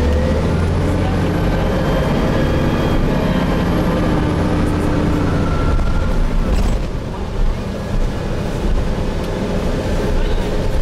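Gillig Phantom transit bus with a Voith transmission running under way, heard from inside the passenger cabin: a steady engine rumble with a whine that shifts in pitch, easing off a little about six seconds in, with a couple of short knocks.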